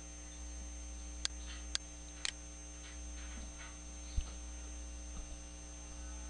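Steady electrical mains hum on the recording, with three sharp mouse clicks about one to two and a half seconds in and a dull knock a little after four seconds.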